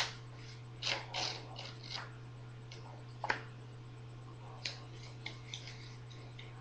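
Scattered short clicks and rustles at irregular intervals, the loudest right at the start and about three seconds in, over a steady low hum.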